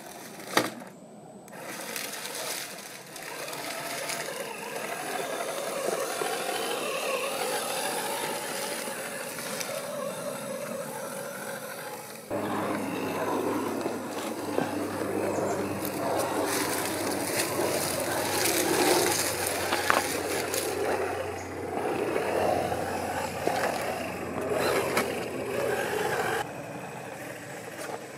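A 1/8-scale RC rock crawler running on a 550 brushed motor, its motor and gear drivetrain whirring as it crawls over rock, with tyres scraping and parts rattling and a sharp click just after the start. About twelve seconds in the sound changes abruptly and a steady low hum joins it.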